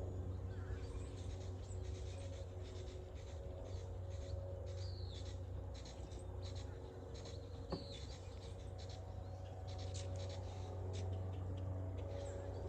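Wooden hive frames scraping and clicking as they are handled and fitted into a Langstroth hive box, with a steady hum of honeybees underneath. A couple of short bird chirps come in around the middle.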